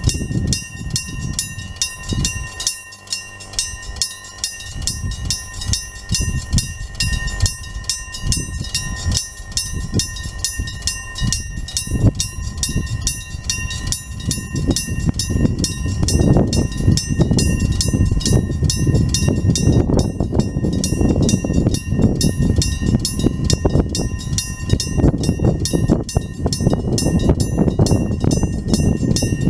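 Electromechanical railway level-crossing alarm bell striking rapidly and ringing on steadily, while a train rumbles past, louder in the second half.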